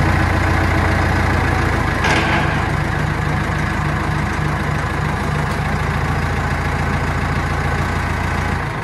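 Tractor engine running steadily while the front-end loader lifts a hanging deer carcass. A brief hiss comes about two seconds in, and the engine dies down at the very end.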